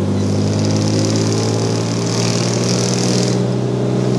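Vintage car's engine running at a steady speed while driving, heard from inside the cabin. A high hiss rides over it and stops about three seconds in.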